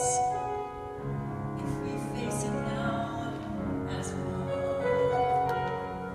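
Piano accompaniment playing long held chords: the introduction to a musical-theatre duet, before the voices come in.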